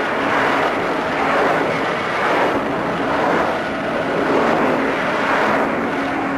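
Homemade Godzilla-style monster sound effect: a long, rough, noisy rush that swells and eases about once a second, over a faint low hum.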